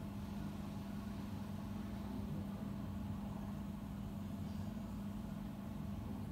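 Steady low machine hum: one constant drone with a rumble beneath it, unchanging throughout.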